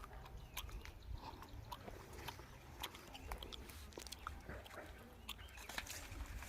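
Irregular crunching and crackling footsteps over dry ground and plant litter, with a low, uneven rumble of wind on the microphone.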